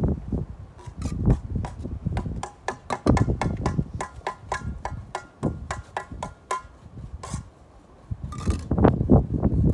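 Bricklayer's trowel knocking on bricks and mortar: a quick run of sharp, slightly ringing taps in the middle, then scraping and duller knocks near the end.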